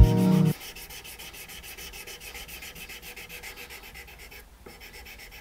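Sandpaper rubbed quickly back and forth by hand along a wooden knife handle, an even rasping at about five strokes a second, pausing briefly about four and a half seconds in. Background music cuts off half a second in.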